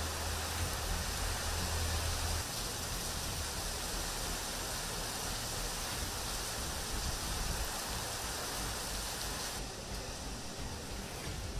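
Heavy hurricane downpour with wind: an even, steady hiss of rain. A low rumble stops about two seconds in, and the hiss thins near the end.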